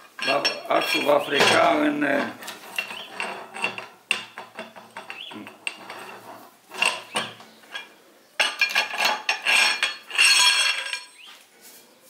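Steel gearbox shaft and metal parts clinking and scraping as they are handled, in separate knocks with a longer ringing scrape near the end.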